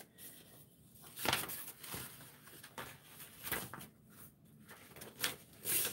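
Faint rustling and handling of paper sheets, a few short rustles scattered across the pause, the loudest about a second in and near the end.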